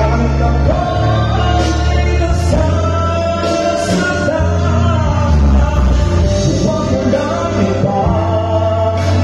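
A man singing a ballad into a microphone, amplified through PA speakers over a backing track with bass and drums.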